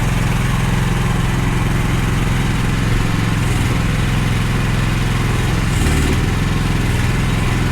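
Small diesel engine of a mini excavator running steadily. Two brief high hisses come about three and a half and six seconds in.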